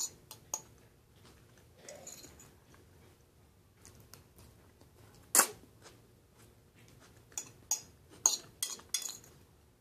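A metal fork clicking and scraping against a bowl while spaghetti is eaten, with a few faint mouth sounds of eating between. There are a few light clicks at first, a single sharp click about halfway through, and a quick run of clicks near the end.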